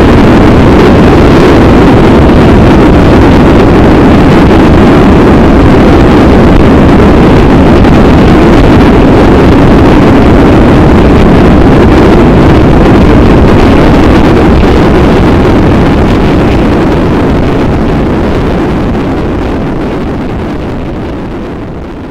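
Motorcycle riding at motorway speed, heard from a camera mounted on the bike: loud, steady wind rush on the microphone with the engine and tyre noise beneath. The sound fades out gradually over the last several seconds.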